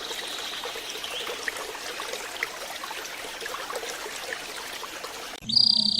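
Water trickling in a steady stream with faint scattered ticks. About five seconds in it cuts off abruptly, and a loud, steady, high bird note begins.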